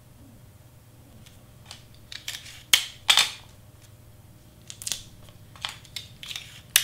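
Handling noise of large cardstock pieces being slid and pressed into place on a cutting mat: a series of short, sharp scrapes and rustles, loudest about two and a half to three seconds in. Near the end, Scotch tape being pulled from its dispenser.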